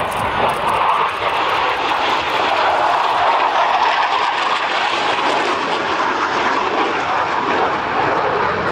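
Blue Angels F/A-18 Super Hornet's two GE F414 jet engines roaring in flight: a loud, steady rushing roar that swells at the start and then holds.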